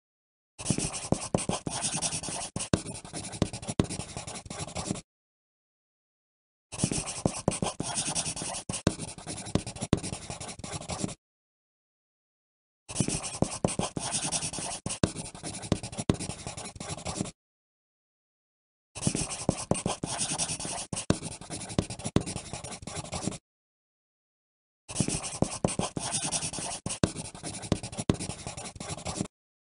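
Pencil writing on paper: five stretches of scratchy strokes, each about four seconds long, with occasional sharper ticks. Short gaps of complete silence separate the stretches.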